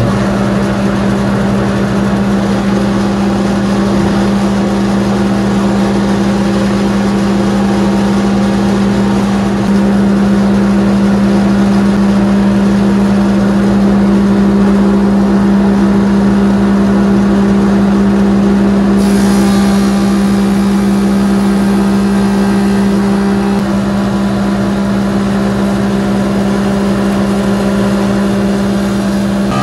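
WoodMaster 25-inch molder/planer running with its dust collector, planing a wide oak slab: a loud, steady motor drone with the hiss of the cutterhead taking wood. About two-thirds of the way through, a brighter high hiss comes in over the drone.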